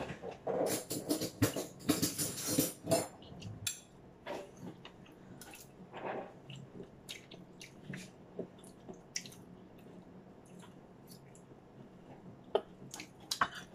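Eating sounds close to the microphone: chewing and mouth clicks with light clicking, dense for the first three or four seconds and then scattered and quieter.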